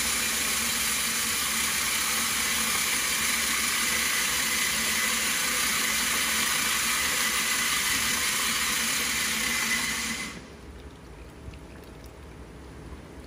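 Stone bead milling machine running with water pouring into its drum from a hose: a steady wash of water and churning noise that cuts off suddenly about ten seconds in, leaving a quieter low hum.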